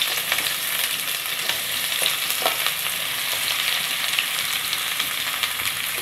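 Onions frying in hot mustard oil: a steady sizzling hiss with fine crackles.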